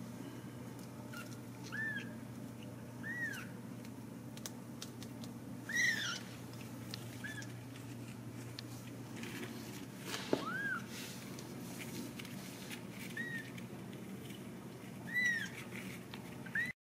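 Very young Ragdoll kittens mewing: about nine short, high-pitched peeps scattered through, each rising and falling, the loudest two about six seconds in and near the end, over a steady low hum.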